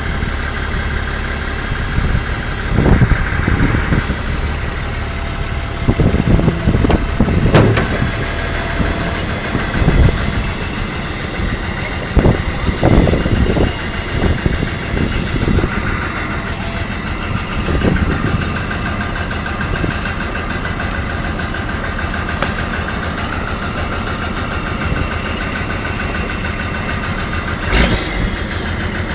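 Military cargo truck's engine running as the truck moves, heard from the cab close to the upright exhaust stack, with several louder surges in the first half and a few sharp knocks.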